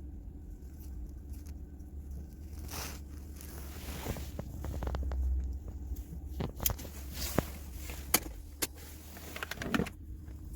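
Scattered sharp clicks and knocks of hand work on small parts, over a low steady rumble.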